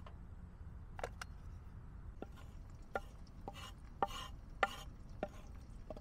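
A knife chopping on a cutting board: about nine uneven knocks, a couple of them with a brief scrape.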